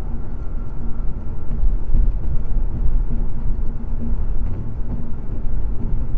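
Car cruising at highway speed, heard from inside the cabin: a steady low rumble of road and engine noise.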